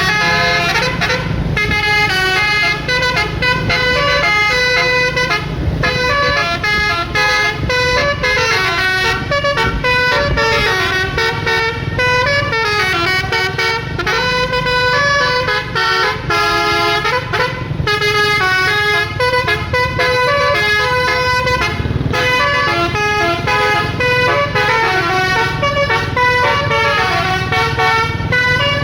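Basuri telolet horn, a multi-tone bus air horn, playing a tune in stepping sustained notes over a steady low rumble.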